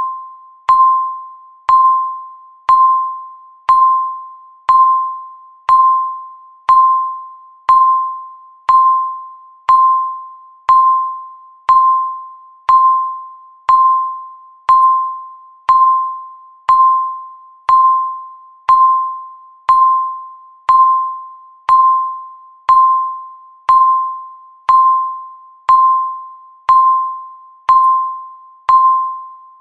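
Countdown timer ticking off the seconds with a short electronic beep once a second, each beep a single pitch that starts sharply and fades away quickly.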